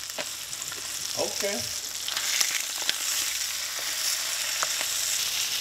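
Mutton snapper fillet sizzling in melted butter in a nonstick frying pan. The sizzle grows louder about two seconds in, and a few light clicks come as the fillet is turned with a fork.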